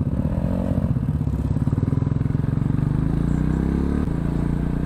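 Motorcycle engine running while riding, its pitch climbing for a second or so and then dropping suddenly about four seconds in.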